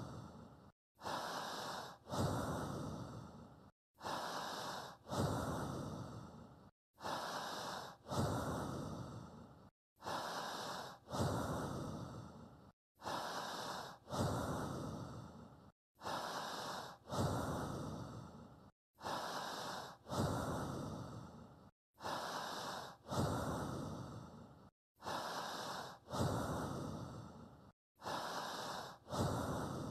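Human breathing played as a steady loop to pace the listener's own breathing: one breath about every three seconds, each a short rush followed by a longer one that fades away, with a brief silence between breaths.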